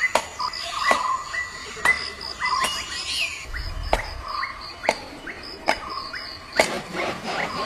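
Field recording of a wild bird calling: short rising chirps and sharp clicks repeating about once a second, over steady insect chirping.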